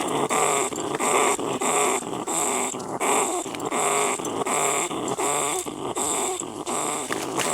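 Angry-animal sound effect given as the voice of an aggressive, trapped brown rat: the same call repeats evenly, about twice a second.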